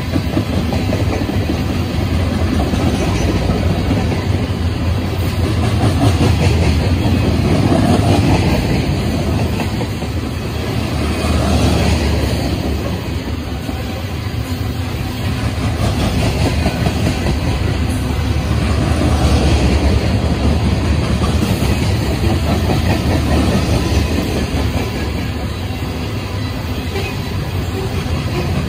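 CSX coal train's open-top coal cars rolling past, a continuous rumble of steel wheels on the rails with clickety-clack from the wheel trucks, swelling and easing in loudness now and then.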